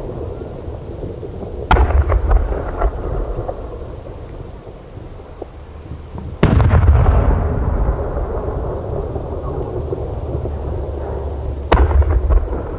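Aerial firework shells bursting: three loud booms about five seconds apart, the middle one loudest with a long rolling echo. A few smaller cracks follow the first boom.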